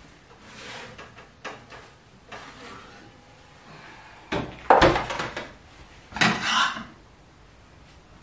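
Metal roasting tray of browning broth bones pulled from an electric oven and set on the stovetop: a few light clicks, then two loud metallic clatters about halfway through and again a second and a half later, as the tray lands and the oven door is shut.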